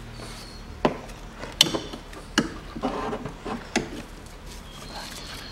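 Alternator knocking and scraping against the engine and its mounting bracket as it is worked into place by hand: several sharp, uneven knocks, the loudest about one and a half seconds in.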